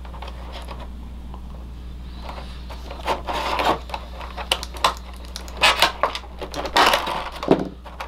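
Plastic toy packaging crackling and clicking in irregular bursts as small figure accessories are worked loose, starting about three seconds in, over a steady low hum.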